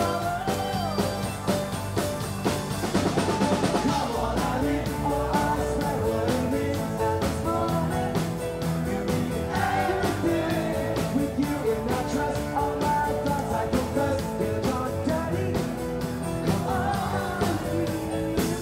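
A live rock band playing: drums keep a steady beat under electric guitar and bass, with a singer's voice coming in at times.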